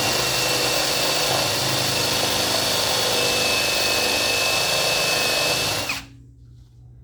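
Electric drill with a step bit running and cutting into a steel piece, enlarging the hole sideways: a loud, steady grinding with a high whine. It stops abruptly about six seconds in.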